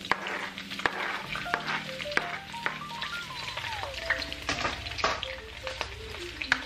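Sliced red onions sizzling in hot olive oil in a nonstick wok, with sharp knocks and ticks as they are pushed off the cutting board into the pan. Light background music with a stepping melody plays alongside.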